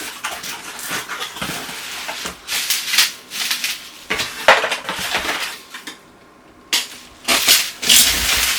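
Packaging of a mailed parcel being torn open and handled by hand: irregular bursts of rustling, crinkling and scraping, with a short pause about six seconds in.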